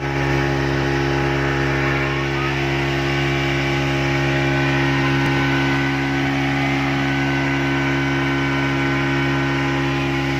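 Speedboat's outboard motor running steadily at speed, an even, unchanging drone, with a rushing hiss of water from the wake over it.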